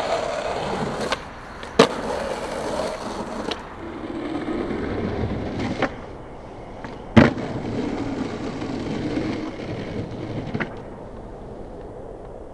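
Skateboard wheels rolling on pavement, with several sharp clacks of the board hitting the ground. The loudest clack comes about seven seconds in.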